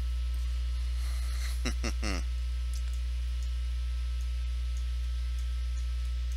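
Steady low electrical mains hum on the recording, with a brief murmured word about two seconds in.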